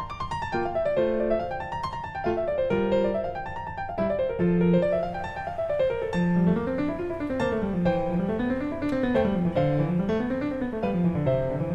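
Background piano music: quick rippling arpeggios rising and falling over a moving bass line.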